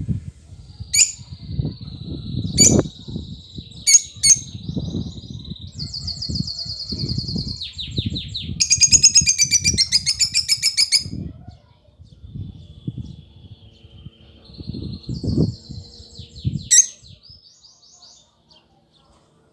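A small cage bird chirping and singing: sharp chirps, long held whistled notes and a loud rapid trill about nine seconds in, over low thumps and rustling.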